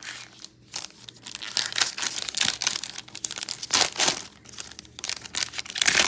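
Plastic-foil trading-card pack wrapper crinkling and being torn open, in irregular rustling bursts.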